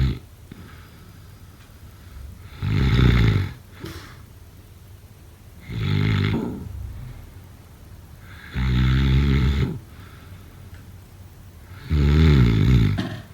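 A person snoring in a slow, steady rhythm: four rattling snores, each about a second long, about three seconds apart, with the tail of another snore at the very start.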